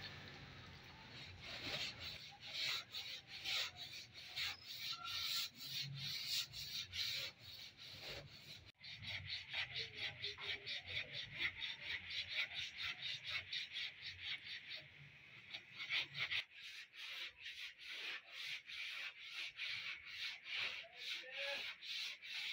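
Sandpaper rubbed by hand over polyester body filler and primer on a car body panel, in quick back-and-forth strokes of about three a second.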